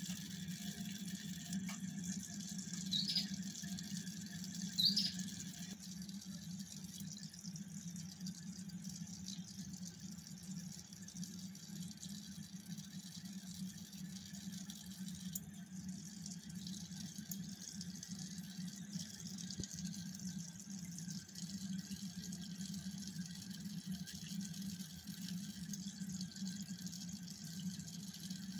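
Steady low hum with a faint watery hiss, the sound of reef-aquarium pumps and running water. Two short high squeaks come about three and five seconds in.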